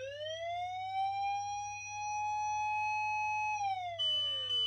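Osaka Siren MK-D1 electronic siren sounding the fire-engine wail: a tone that rises, holds steady, then falls away from about three and a half seconds in. Near the end a second, steady high-pitched tone comes in over the falling wail.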